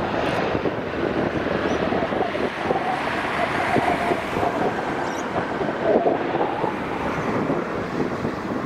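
Bombardier Dash 8 Q400 twin-turboprop airliner on its landing approach: a steady engine and propeller drone with a faint whine, and wind on the microphone.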